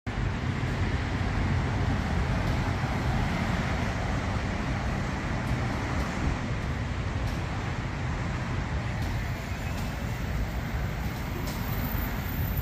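Steady road traffic rumble, an even low drone and hiss without distinct events.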